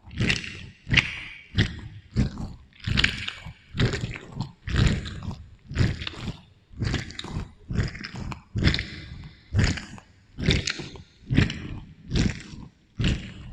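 Close-miked chewing of juicy fruit, the wet mouthfuls coming in an even rhythm a little faster than once a second, with an echo effect added to the sound.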